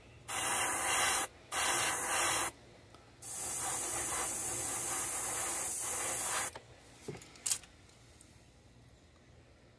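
Airbrush spraying paint in bursts of hiss: two short bursts, then one lasting about three seconds, followed by a couple of faint clicks.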